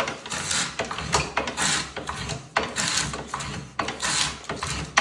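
Barnes foot-powered mortiser cutting a mortise, its top and bottom cutters chopping into the wood together on each stroke. The result is a series of rasping cuts mixed with mechanical clicking from the cast-iron mechanism, each stroke taking off about 40 thousandths.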